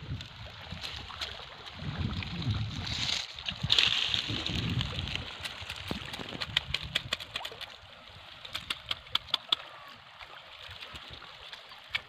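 Wire-mesh prawn trap handled among water plants: rustling and low rumbling handling noise, then from about halfway a run of sharp, quick clicks and ticks against the mesh.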